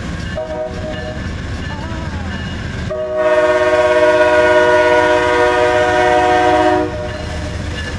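Amtrak GE Genesis P42DC locomotive's Nathan K5LA five-chime air horn sounding one long blast of about four seconds, starting about three seconds in. Under it is the low rumble of the approaching train.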